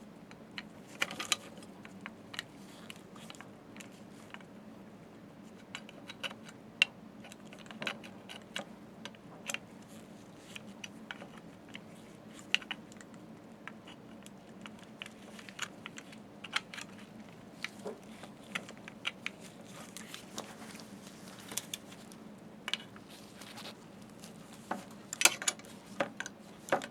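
Irregular small clicks, taps and scrapes as a cable is pressed by hand into a metal chinrest bracket, with a cluster of sharper knocks near the end. A faint steady hum runs underneath.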